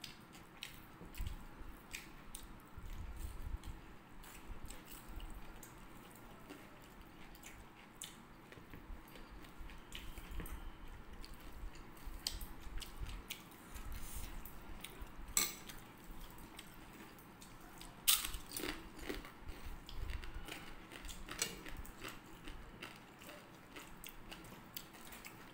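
People eating rice and curries by hand: chewing, and fingers mixing rice on plates, with scattered small clicks and a few sharper taps about two-thirds of the way through.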